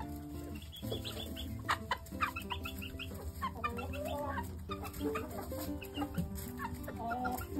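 Chickens clucking, with many short calls coming thick and overlapping, as they are fed mealworms.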